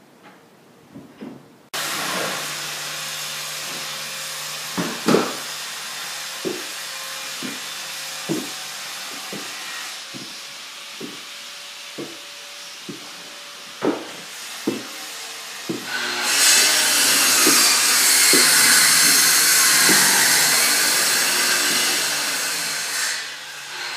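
Building-site noise: a power tool starts abruptly and runs with a steady whirr, while a dozen or so sharp knocks come at irregular intervals. About two-thirds of the way through the whirr grows louder and harsher, then dips near the end.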